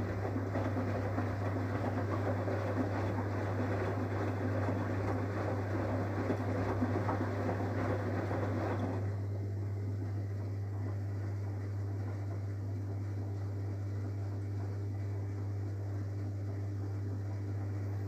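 Samsung WW80CGC04DAELE front-loading washing machine in the wash phase of a 40°C bedding cycle: wet bedding and soapy water slosh in the turning drum over a steady low hum. The sloshing stops about halfway through as the drum pauses, leaving the hum.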